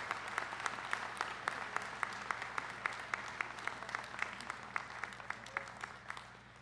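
Crowd applauding in a large hall, with one close pair of hands clapping steadily about three to four times a second; the applause dies away near the end.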